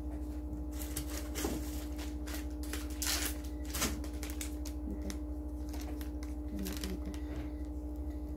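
Plastic packet of long cotton-tipped swabs crinkling and rustling in the hands in irregular bursts, the loudest a little over a second in and around three and four seconds in, over a steady low hum.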